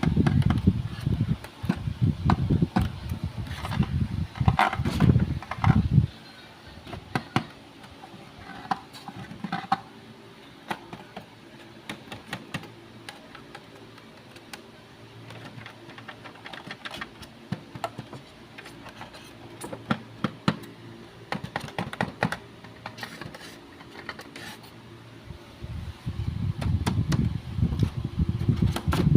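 Background music for about the first six seconds; after it stops, scattered light clicks and taps of a package being handled, until music comes back near the end.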